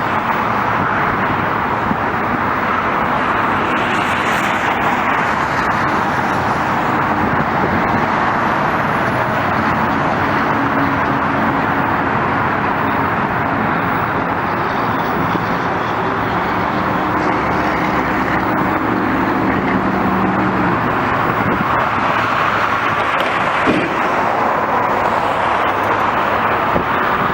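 Steady, loud vehicle noise: a constant roar that holds level throughout, with no rise or fall.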